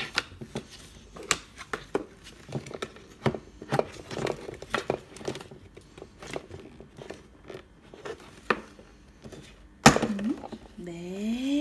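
Hard plastic toy case being worked open by hand: a scatter of small clicks and knocks from its latch and lid, with some crinkling, and one louder snap about ten seconds in.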